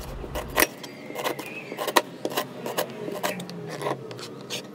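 Chef's knife slicing a stalk of lemongrass on a plastic cutting board: a run of short, sharp chops, irregular, about two to three a second.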